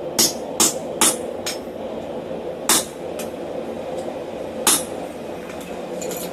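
Hammer blows on steel at the anvil, each a sharp ringing clink: four quick strikes in the first second and a half, then three more spaced out, over a steady background hum.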